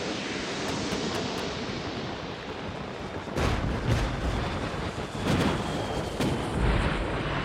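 Wartime gunfire and explosions: a steady rushing hiss, then from about three seconds in a run of several heavy booms and blasts.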